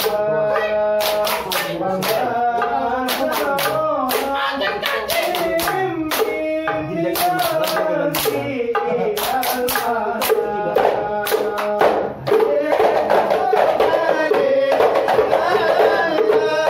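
Hadrah Ishari group chanting sholawat in Arabic over hand-struck frame drums beaten in a quick rhythm, with hand claps. There is a brief dip about twelve seconds in, then a fuller chorus of voices.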